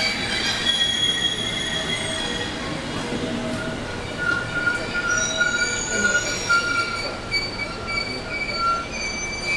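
JR West 221 series electric train pulling in along the platform and slowing almost to a stop, its brakes squealing in several high, steady tones over the running noise.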